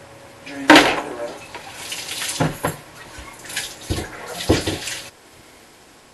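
Water splashing and pouring out of an old toilet being tipped over a bathtub to drain it, in several surges, with a loud clunk about a second in.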